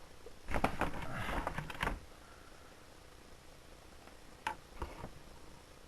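Plastic model figures being handled and set down: a clatter of clicks and rattles for about a second and a half, then a couple of sharp clicks near the end.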